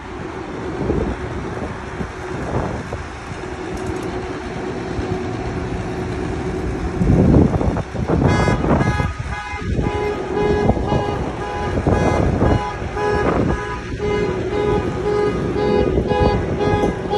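City street traffic with cars and a truck driving past, then from about eight seconds in a vehicle horn honking repeatedly in several blasts, some short and some longer.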